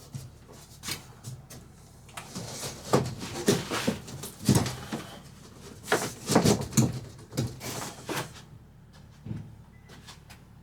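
Irregular knocks and clatter of hard objects being handled and set down, busiest from about three to eight seconds in.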